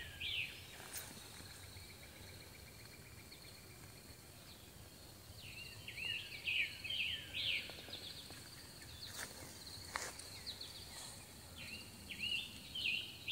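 Songbirds singing in repeated bursts of quick, hooked chirps, with a thin steady high tone behind them and a few faint taps.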